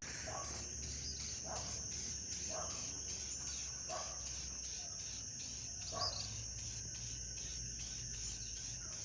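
Crickets chirping in a steady rhythm, about three chirps a second, over a continuous high trill.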